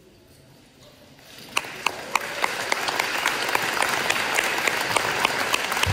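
An audience applauding. It breaks out about a second and a half in and builds quickly, with single sharp claps standing out.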